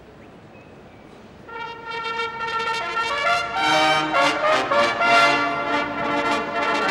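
Military fanfare trumpets playing a fanfare, entering about a second and a half in with one held note, then further notes stacking into loud held chords as more trumpets join. Before it, only a low arena hum.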